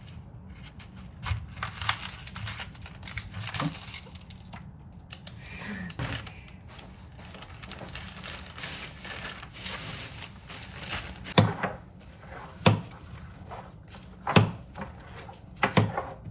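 A plastic food packet crinkling and being handled, with small clicks and knocks. Near the end come four sharp chops of a knife slicing vegetables on a plastic cutting board, each well apart from the next.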